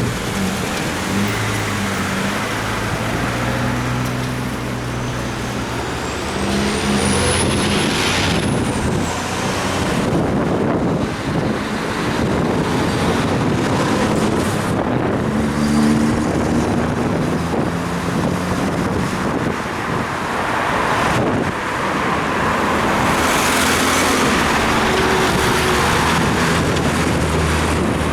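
Road traffic heard from a moving bicycle: engines of passing cars and trucks over a steady hiss of tyres and wind. A high whine rises and then falls about seven seconds in.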